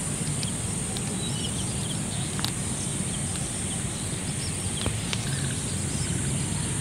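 Steady high-pitched insect chirring over a low background rumble, with a few faint clicks near the middle.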